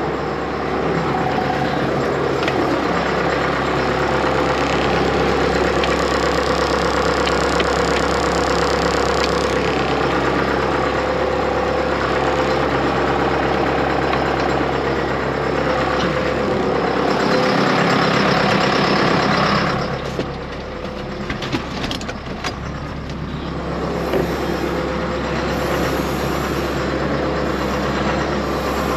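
John Deere 6430 tractor's four-cylinder diesel engine running steadily; about twenty seconds in it turns quieter, and a few sharp clicks and knocks follow.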